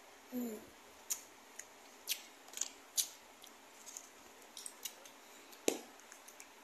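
A short hummed 'mm', then sparse crisp clicks and crackles from a crunchy snack being chewed close to the microphone, with one sharper snap about five and a half seconds in.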